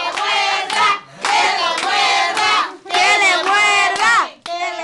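A group of voices chanting together in three short, loud phrases, with hands clapping along.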